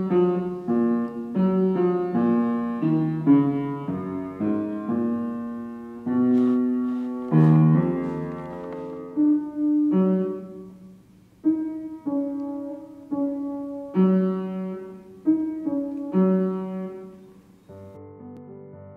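Upright piano playing a slow, gentle melody, each note or chord struck and left to fade; the playing grows quieter near the end.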